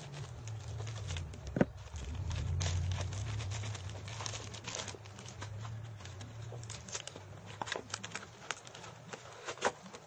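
A parcel being opened by hand: scissors snipping a paper envelope, then paper and plastic wrapping rustling and crinkling, with many scattered sharp clicks over a low hum.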